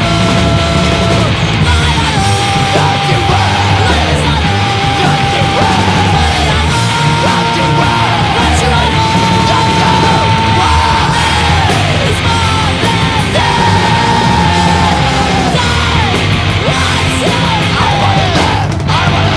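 Crust punk song: distorted guitars and pounding drums under yelled vocals, with a line of long held notes that sag in pitch as each one ends.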